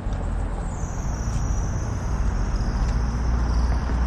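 Road traffic on the adjacent multi-lane street: a steady low rumble that builds slightly toward the end. A thin high whine comes in about half a second in and slowly falls in pitch.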